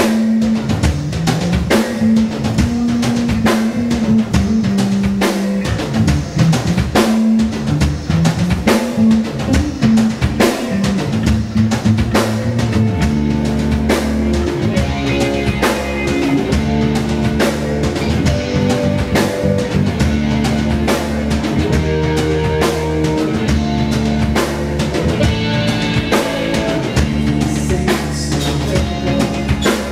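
Rock band playing live: a drum kit keeping a steady beat with bass drum and snare, under electric guitars and bass holding and changing notes.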